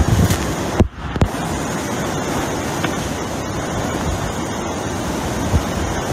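Hurricane-force wind and driving rain making a steady, loud rushing noise, with the wind buffeting the microphone. The sound cuts out for a split second about a second in, with a click on either side.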